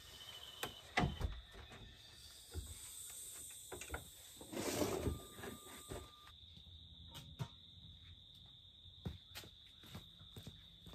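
Crickets chirring steadily, with scattered clicks and knocks as a door is opened and shut. The loudest knock comes about a second in, and there is a longer rustle around the middle.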